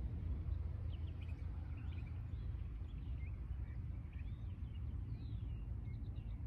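Birds chirping faintly in the background, short scattered calls over a steady low outdoor rumble.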